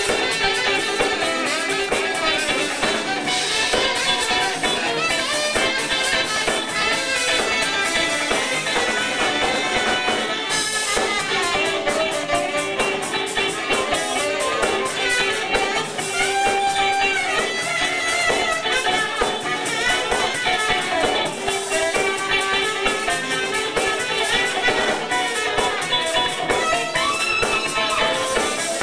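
Live Chicago-style blues band playing: electric guitar over drum kit, bass and keyboard, with a horn section of saxophones and trumpet.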